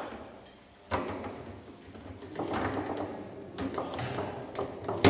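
Table soccer match play: the hard plastic ball knocks against the player figures and table walls while the metal rods clack and rattle. There is a sharp knock about a second in, then a quick run of clacks.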